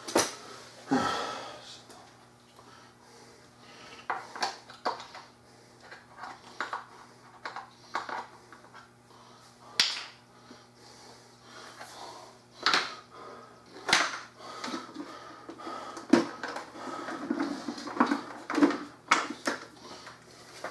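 Irregular clicks and knocks of hard plastic parts being handled and fitted on an electric pressure washer during assembly, over a faint steady low hum.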